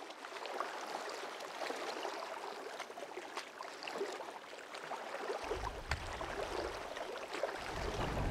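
Water lapping and splashing, a fine crackly trickle of small splashes. A low rumble joins it about five seconds in.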